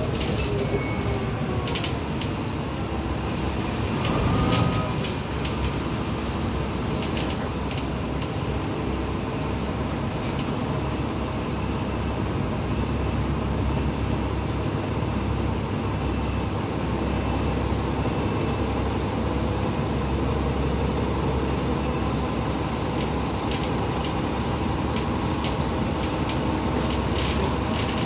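The inside of a moving city bus: the steady running noise of the engine and road heard in the passenger cabin, with a few sharp clicks near the start and near the end.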